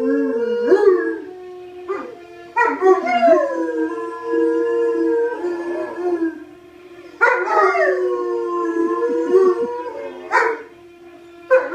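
Two English mastiffs howling together, two voices at different pitches overlapping. Four rounds of long howls, each opening with a higher cry that slides down and then holds steady.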